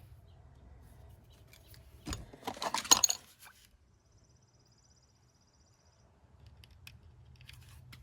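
Small metal clicks and rattles of lock pins and tools being handled while new pins are loaded into a Schlage cylinder plug during a rekey, loudest in a quick cluster about two to three seconds in, with a faint fast ticking around the middle.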